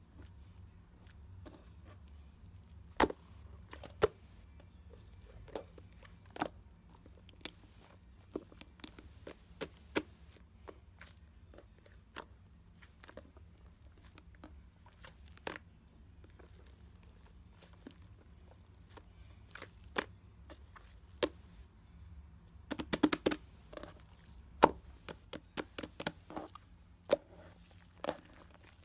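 Irregular sharp clicks and knocks over a low steady hum, with a quick flurry of taps near the end.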